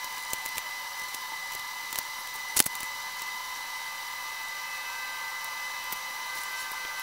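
Light clicks and ticks of hands working spark plugs and coil packs in an engine bay, with one sharper click about two and a half seconds in. Under them runs a steady high-pitched whine of several tones with no low end, typical of a sped-up stretch of footage.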